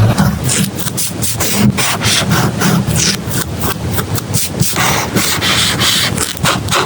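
Paper rubbing and scraping in quick, irregular strokes, from hands working collage materials such as paper, tape and stickers into a journal.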